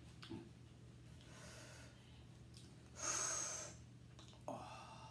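A person breathing sharply through the mouth against the burn of spicy food: one loud, hissing breath about three seconds in and a shorter one near the end.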